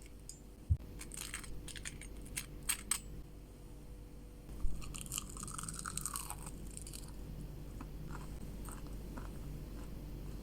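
Crispy fried snack crunching: a few sharp crackles in the first three seconds, then a longer crunch around the middle.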